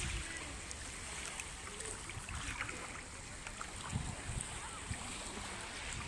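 Crowded beach ambience: a steady wash of distant voices with a few faint calls and shouts from bathers, over a low rumble of wind on the microphone.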